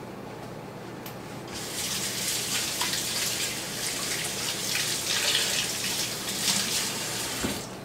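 Kitchen faucet running steadily into a sink, turned on about a second and a half in and shut off near the end.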